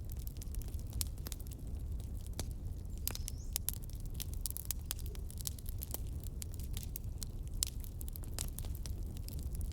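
Fire crackling: irregular sharp pops and snaps over a low rumble.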